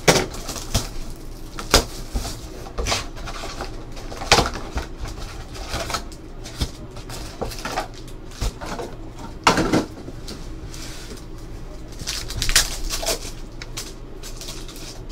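Cardboard card box and foil trading-card packs being handled and torn open: scattered crinkles, rustles and sharp rips, with a denser burst of foil crinkling near the end.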